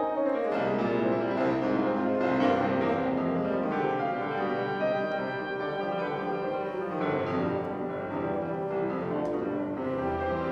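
Instrumental background music with piano.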